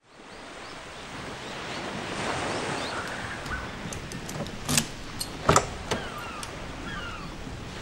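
A key turning in the lock of a wooden door: a few sharp metallic clicks about halfway through, over a steady rushing background noise with faint high chirps.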